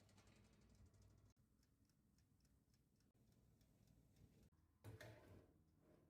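Near silence with faint, even ticking, about three ticks a second, and a brief soft handling sound about five seconds in.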